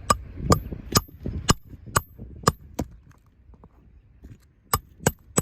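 Hammer blows on a steel shingle snake, driving a roofing nail under an architectural shingle: a run of about seven strikes at roughly two a second, a pause, then three more near the end, each with a short metallic ring.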